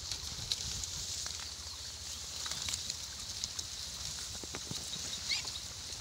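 A herd of pigs rooting and feeding through dry leaves and water hyacinth, with scattered crackling and rustling over a steady high hiss.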